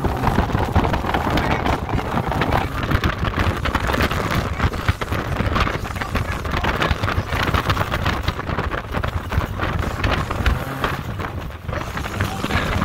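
MG Midget open-top sports car driving along a rough sandy trail: the engine runs steadily under light throttle, with wind buffeting the microphone and frequent knocks and rattles from the car jolting over the ruts.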